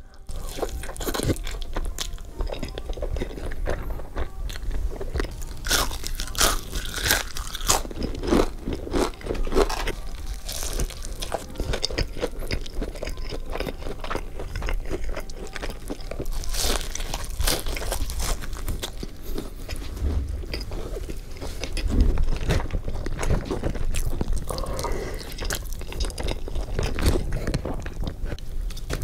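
A person eating crispy fried chicken and fries close to the microphone: irregular crisp crunching bites and chewing.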